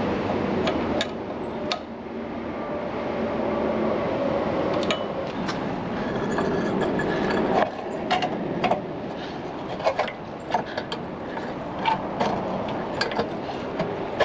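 Hand tools and metal parts clinking and knocking in scattered sharp taps over a steady background hiss, as work goes on at the engine.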